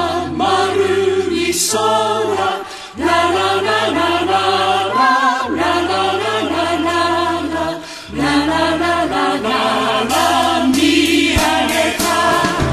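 Japanese song sung in choral vocal harmony over a band of piano, bass and drums, in phrases with short breaks about three and eight seconds in.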